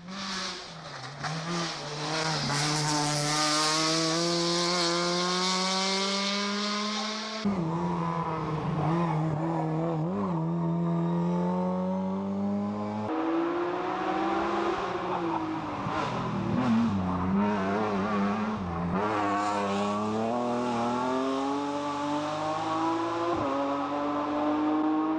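Rally car engines at hard throttle, the note climbing steadily in pitch as the car accelerates, dropping sharply at gear changes or lifts, then climbing again.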